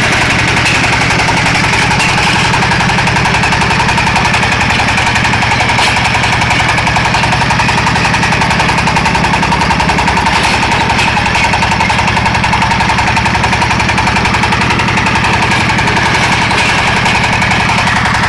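Small single-cylinder diesel engine driving a portable hydraulic water-well drilling rig, running steadily under load with a fast, even chugging beat and a steady whine over it.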